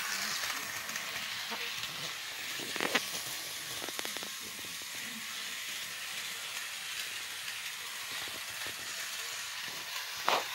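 HO scale model diesel locomotive running along its track with a steady hissing whir, broken by a few sharp clicks.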